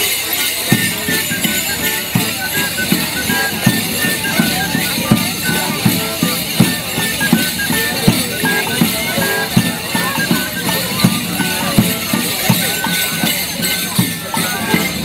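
Morris band playing a folk dance tune over a steady thumping beat, with the jingling of the dancers' leg bells as they dance.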